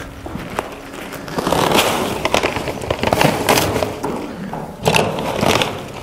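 Hydroton expanded clay pebbles poured from their bag into a black plastic bucket, a dense clattering rattle of small clay balls that starts about a second and a half in, after the bag is crinkled open, and runs for several seconds.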